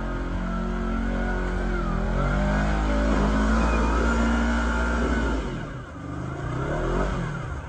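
Side-by-side UTV engine revving hard and unevenly as the machine climbs a steep, muddy ledge. The revs fall away about two-thirds through, then pick up again.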